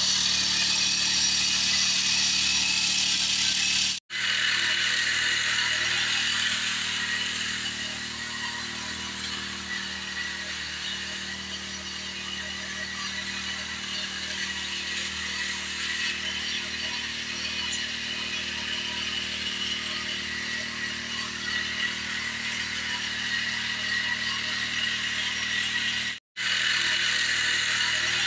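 Small four-stroke engine of a Bison power spray machine running steadily, with a steady high hiss as the nozzle sprays a fine mist. The sound is louder for the first few seconds, then steadier and a little quieter, and it cuts out to silence for a moment about 4 s in and again near the end.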